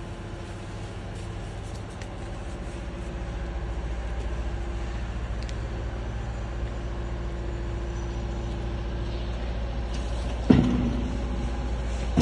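Steady low rumble of a running engine, growing a little louder after a few seconds, with a sudden loud clunk about ten and a half seconds in.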